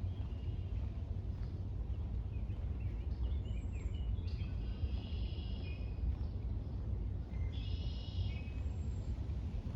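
Songbirds calling in woodland: a few high phrases of about a second each, three times, over a steady low outdoor rumble.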